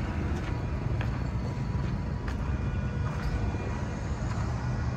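Steady low engine rumble, with a few faint light clicks about one, two and three seconds in.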